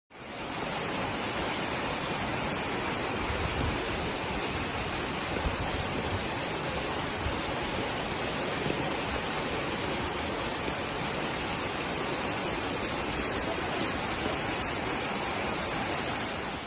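Steady rushing noise of hurricane wind and water, even and unbroken, fading out near the end.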